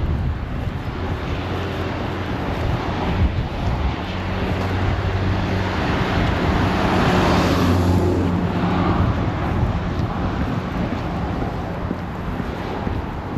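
A car driving past: a rush of engine and tyre noise that swells to its loudest about seven or eight seconds in, then fades away.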